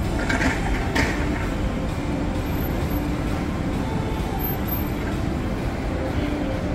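Steady low rumble of outdoor city background noise, even and unbroken.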